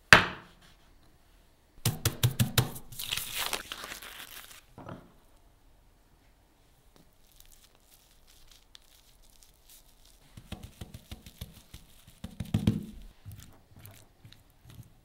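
Sushi-making handling sounds: a sharp knock as a wooden sign stand is set down on the wooden table, then a few seconds of crisp crinkling from a nori sheet on a bamboo rolling mat. Later comes soft handling as sticky rice is spread by hand, and near the end light clicks of chopsticks in a glass bowl of beans.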